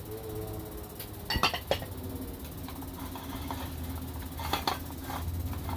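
A few clinks and knocks of a spoon and bowl against a saucepan as liquid is poured into a cheese sauce and stirred, over a steady low hum.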